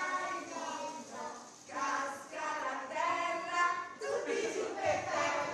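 A group of children and women singing a song together while dancing in a ring.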